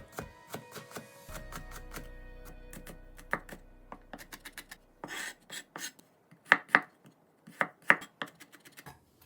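Kitchen knife chopping green onion and ginger: quick, light strikes in the first half, then fewer, louder chops.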